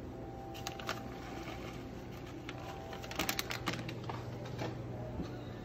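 Scattered light clicks and taps of kitchen food preparation on a counter, with a cluster of quick ones a little past the middle, over a steady low hum.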